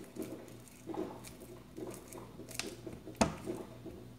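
Ripe banana being mashed with a metal fork on a plate: soft, repeated squishing strokes, with one sharp tap of the fork against the plate about three seconds in.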